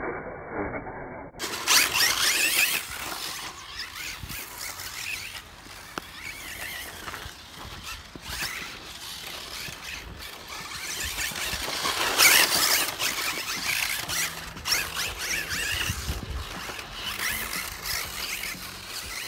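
Kyosho Turbo Optima electric RC buggy running hard on a dirt track: the whine of its 10.5T brushless motor and gears rises and falls with the throttle over the noise of the tyres on loose dirt. It is loudest as the car passes close, about two seconds in and again around twelve seconds in.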